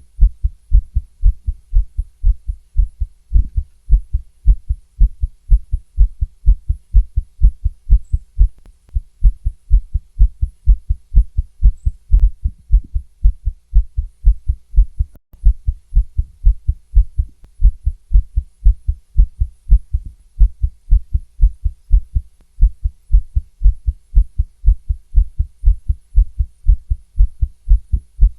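A woman's heartbeat heard through a stethoscope: a fast, even lub-dub of deep paired thuds.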